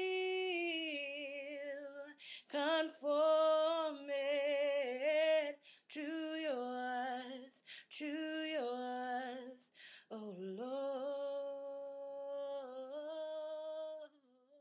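A woman singing a slow worship song unaccompanied, in about five phrases of long held notes with vibrato; the last phrase is the longest and dies away just before the end.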